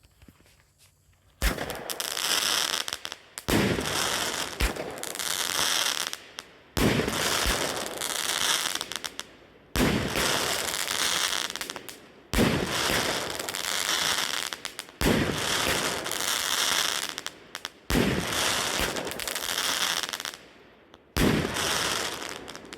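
BEM Spring Garden 7-shot firework cake firing. After about a second and a half of quiet, shots go off every two to three seconds, each a sharp bang followed by a long crackle and fizz from the crackling tails and glitter effects.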